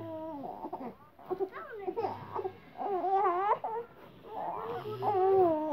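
A toddler's voice making a string of whiny, cry-like sounds: several drawn-out, high-pitched notes that waver in pitch, about a second apart.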